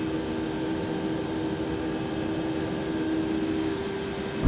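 Steady hum of running shop machinery, a drone with a couple of steady tones; one tone drops out near the end, followed by a sharp click.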